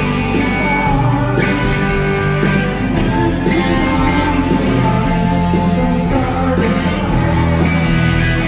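Live rock band playing loud, led by electric guitar with keyboard behind, recorded through a phone's microphone in the audience.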